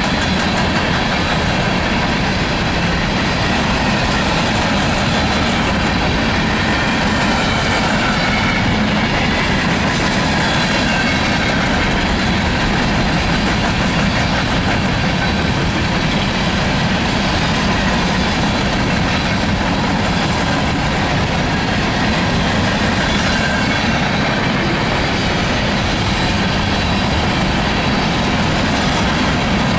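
Coal cars of a BNSF freight train rolling past at steady speed: continuous loud wheel-on-rail noise, with a few thin, faint high squealing tones over it.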